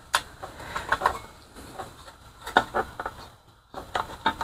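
Scattered light clicks and taps of small engine parts being handled as a lawnmower engine's linkage and breather tube are put back together.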